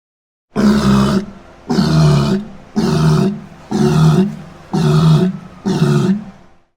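Creature roar sound effect layered from animal recordings: six short, pitched, grunting roars about a second apart, each starting abruptly and fading away.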